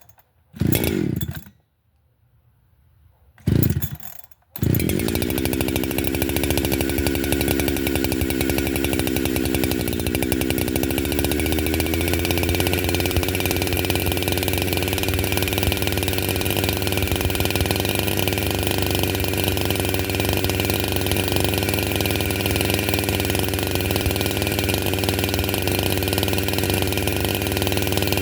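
Holzfforma G372 two-stroke chainsaw being pull-started: two short pulls, then it catches about four and a half seconds in and runs steadily to warm up, its speed dipping briefly around ten seconds in before settling.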